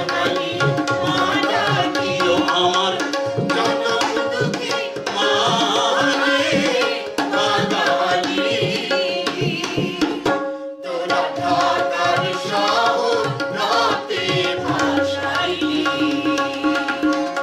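Group of men and women singing a Bengali gana sangeet together, accompanied by harmonium and tabla, with the tabla strokes keeping a steady beat under the voices. The music drops out for a split second about ten and a half seconds in, then carries on.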